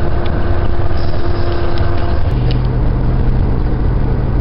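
Bus engine and road noise heard from inside the cabin while riding: a loud, steady low drone whose engine note changes about halfway through, a higher hum giving way to a lower one.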